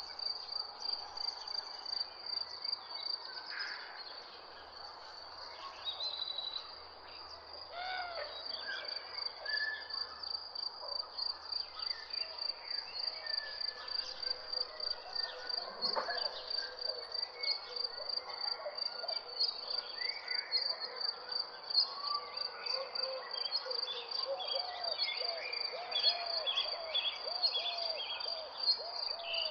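A steady, rapid high-pitched chirping of insects, likely crickets, with various birds calling over it. Near the end one bird repeats a short low note about twice a second.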